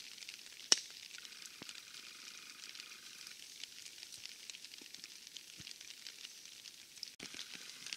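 Light rain pattering as a faint, steady crackling hiss with scattered drips, and one sharp click about a second in.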